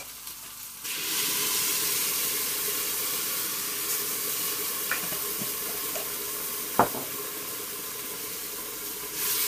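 Broth poured into a hot stainless stockpot onto browned, caramelised onion, carrot and beef scraps, hissing and sizzling as it deglazes the pot base. The sizzle starts about a second in and slowly dies down, with one sharp knock about seven seconds in.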